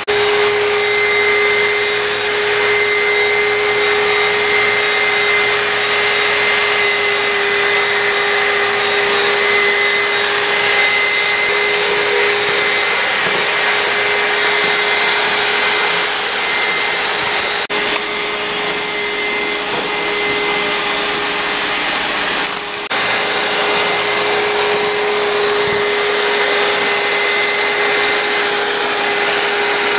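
Electrolux Pure i9 robot vacuum cleaner running: a steady whir with a constant whine from its motor, dipping briefly about two-thirds of the way through. It is working again after being left out in the rain.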